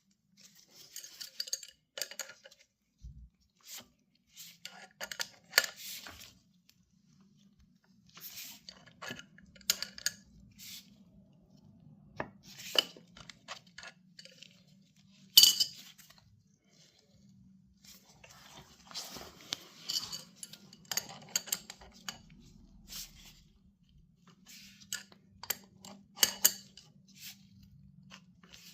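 Metal clicking and clinking in short, repeated bursts as a wrench turns the press bolt of a Tusk chain riveting tool, pressing a 530 master link's side plate onto its rivets. One louder click about halfway through.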